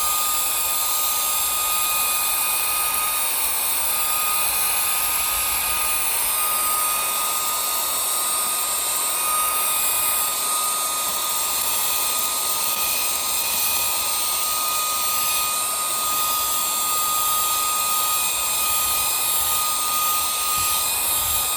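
Cordless handheld mini vacuum running at a steady speed, a high motor whine over a rushing airflow hiss, as its brush nozzle sucks debris from a couch.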